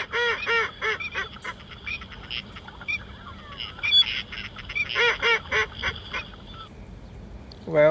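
Recorded duck call played from a handheld two-way radio's built-in hunting-call feature through its small speaker: runs of short quacks, a quick series at the start and another about five seconds in.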